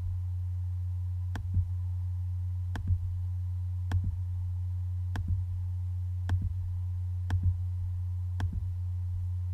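Seven sharp computer mouse clicks, about one every second and a bit, as a list of items is clicked through one by one. A steady low hum runs underneath.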